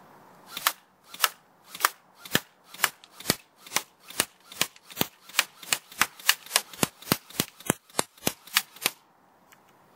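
An airsoft gun fired in quick single shots at a paper target, a little over twenty sharp cracks, about two a second at first and quickening to about three a second. The gun is being test-fired to set its hop-up.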